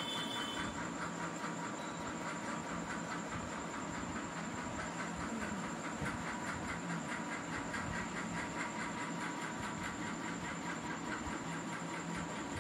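Steady background hiss with a faint constant hum and no distinct events.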